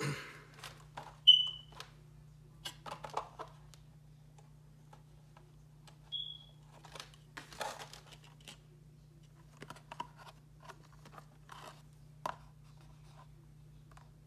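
Plastic packaging and parts being handled: scattered clicks, taps and rustling, with two short high-pitched tones, the first and loudest about a second in and another about halfway. A steady low hum sits underneath.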